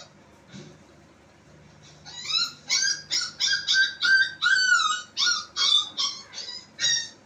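A dog giving a quick run of about a dozen short, high-pitched yips and whimpers, starting about two seconds in, each call bending and falling in pitch.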